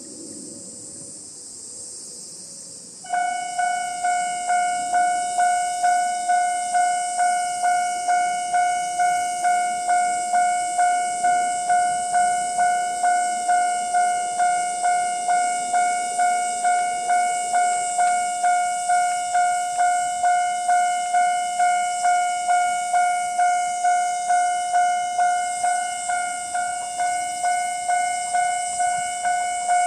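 Japanese railway level crossing alarm starting up about three seconds in, then ringing its steady electronic bell tone over and over, just under two strikes a second: the warning that a train is approaching.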